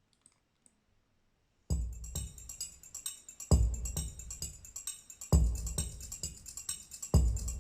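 Music played through vintage JVC SK-15A mk2 loudspeakers, starting about two seconds in after near silence with two faint clicks. It has a deep bass beat about every two seconds under quick, steady ticking percussion.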